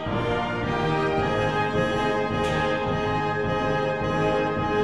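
Background instrumental music with long held notes at a steady level.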